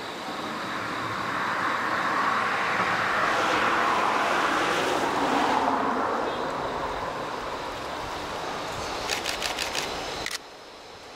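A road vehicle passing close by, its noise swelling over a couple of seconds and then fading away. Near the end comes a quick run of sharp clicks, then the sound drops off suddenly.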